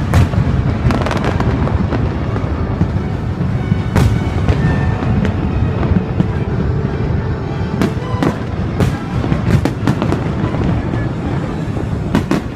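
Aerial fireworks display: shells bursting in a string of sharp bangs over a continuous low rumble of distant booms, with a quick run of bangs about eight to ten seconds in.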